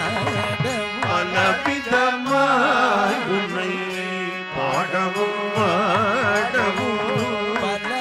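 Carnatic devotional singing: a voice draws out a long, winding melodic line with no words, over a steady drone. Hand-drum strokes come thick in the first two seconds, then thin out.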